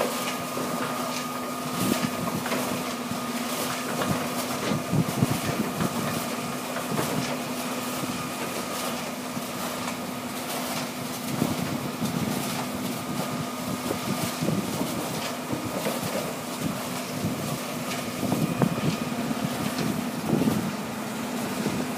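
Heavy earthmoving and screening equipment running steadily: the diesel engines of a trommel screen and excavator hum at a constant pitch, while rock and dirt clatter and knock irregularly as material is dumped and screened.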